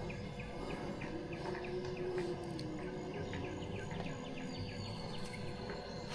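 Outdoor background ambience: a steady hiss with a faint, high chirp repeating several times a second, of the kind small insects make.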